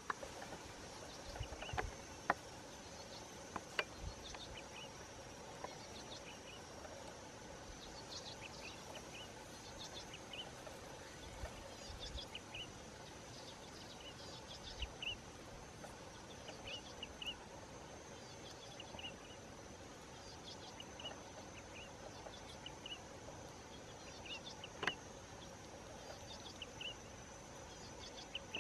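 Faint outdoor insect drone, a steady high thin whine, with short high chirps scattered throughout and a few soft clicks.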